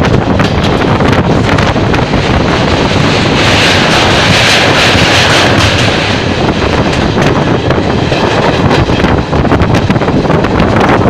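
Wind buffeting the microphone over the rumble of a moving train's wheels on the rails. The sound is steady and loud, growing harsher for about two seconds in the middle.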